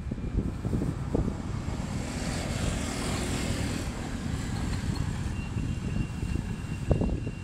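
Wind buffeting the microphone of a camera moving along a bike path, over a background of passing road traffic; a vehicle swells past and fades out around the middle, and a faint steady high tone comes in during the second half.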